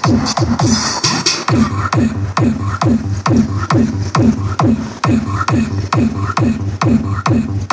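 Electronic dance remix played through a D12 Atomic 1300-watt speaker for a sound test: a repeated falling 'pew' sweep a little over twice a second over a steady bass beat.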